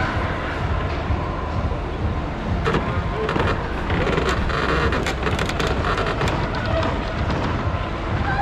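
Busy auto-show hall ambience: a steady low rumble under a murmur of crowd voices, with a run of clicks and clatter through the middle.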